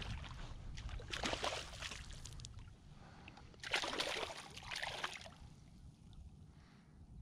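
Hooked fish thrashing and splashing at the water's surface about a second in. A louder splash of water follows near the middle as a hand reaches in and grabs the fish.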